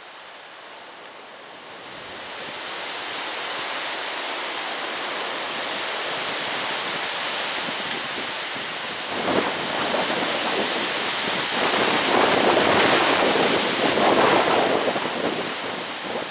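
Wind gusting over the microphone as a rushing, surging noise. It builds after about two seconds and is strongest in gusts in the second half.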